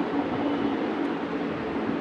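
Steady rumbling noise with a low hum running through it.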